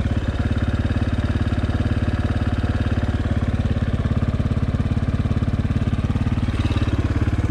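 Honda CRF230F dirt bike's single-cylinder four-stroke engine idling with a steady, even beat, the pitch holding level throughout.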